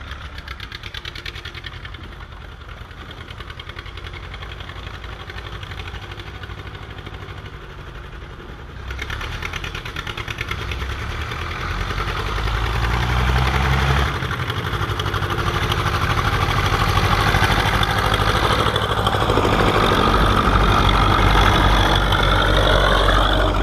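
Ursus C-330 tractor's two-cylinder diesel engine running with a fast, even chug. It gets louder about nine seconds in and again a few seconds later, then holds steady.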